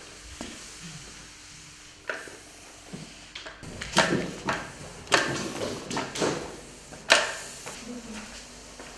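A sponge mop swishing and scraping across a tiled floor in a run of irregular strokes, the loudest about seven seconds in, with a couple of light taps before the strokes begin.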